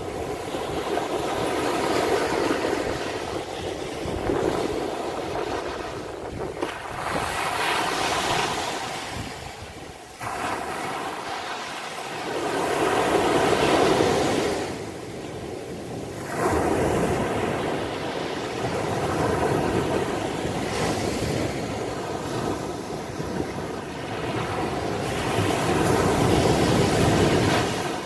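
Mediterranean surf breaking on a sandy beach and washing up the shore. The rush of the waves swells and ebbs every few seconds.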